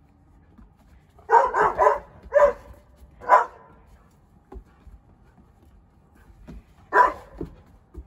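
Australian Shepherd barking: a quick run of three barks a little over a second in, then two single barks about a second apart, and one more bark near the end.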